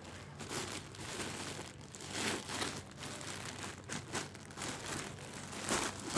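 White plastic courier mailer bag crinkling and rustling as it is handled, in irregular bursts, loudest about two seconds in and again near the end.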